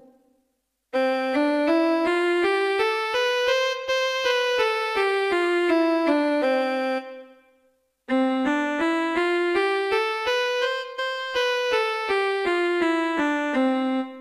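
Yamaha PSS-F30 portable keyboard playing a one-octave scale up and back down, twice, on a piano-like preset voice, one note at a time.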